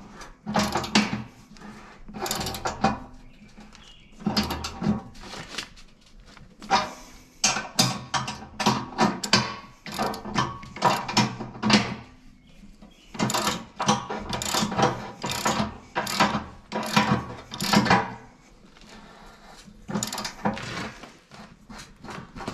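3/4-inch socket ratchet clicking in quick back-and-forth runs as bolts are tightened, with short pauses now and then.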